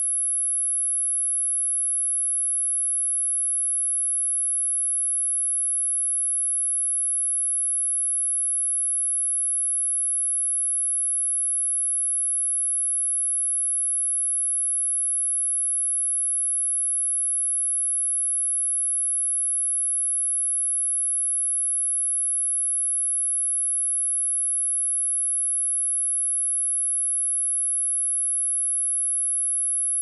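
A pure 10,925 Hz sine-wave test tone: one steady, very high-pitched whine, unchanging in pitch and level.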